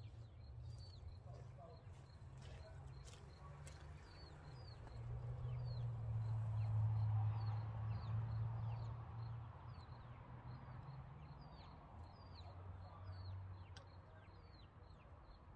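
Baby chicks peeping: short, high, falling chirps repeating a little over once a second. Under them runs a low steady hum that grows louder midway and fades again.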